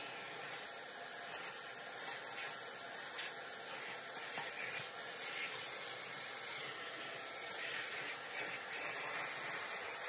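Vacuum cleaner running steadily, its brush nozzle sucking dust out of a quartz heater's metal reflector.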